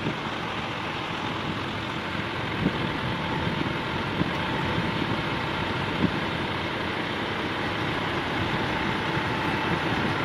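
Volvo FH16 heavy-haul tractor unit's diesel engine running as the truck rolls slowly past, a steady engine and road noise with a few brief knocks.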